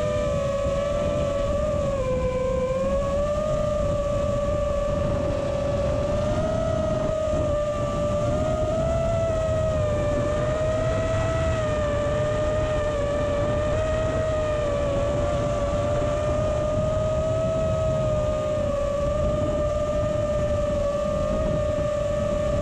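T-Motor Velox 1950 kV motors spinning Ethix P3 propellers on a 6S FPV quadcopter, a continuous whine whose pitch dips and rises as the throttle changes, over a rushing noise, heard through the quad's onboard GoPro.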